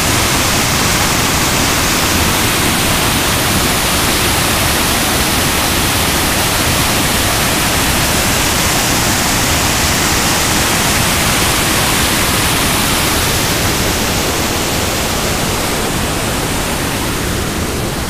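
Waterfall whitewater rushing over rock close by: a loud, steady, even rush.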